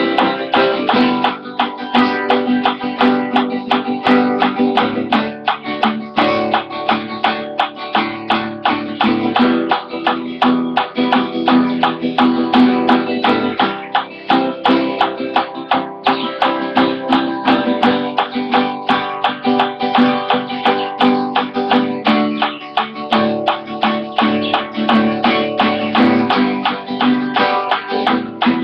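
Acoustic guitar strummed with a pick in a steady, even rhythm, with the chord changing every few seconds. The pick can be heard clicking on the strings.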